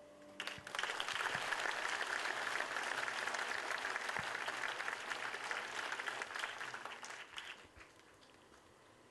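Audience applauding, starting about half a second in as the last held note of the music fades out, then dying away near the end.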